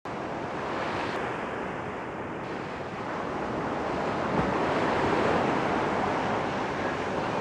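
Steady rush of ocean surf, swelling once and easing over a few seconds, with one brief low thump a little past halfway.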